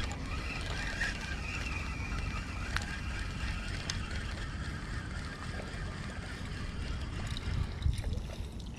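Shimano FX spinning reel wound fast on a lure retrieve, a steady whir, over a steady low rumble; a sharp knock about eight seconds in.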